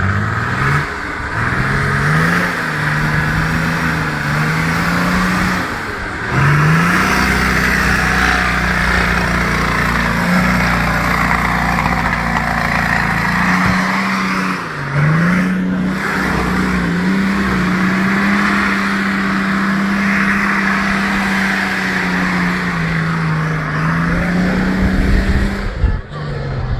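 Car engine revved hard and held at high revs, its pitch rising quickly three times with short drops in between.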